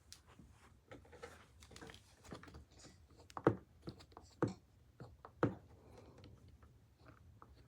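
A run of light clicks and taps, with three louder sharp knocks about a second apart in the middle.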